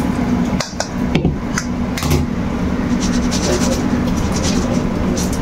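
Steel pot knocking and scraping against a stainless-steel mesh strainer, with several short metallic clinks, as boiled rice is tipped out and its starchy water drained, over a steady low hum.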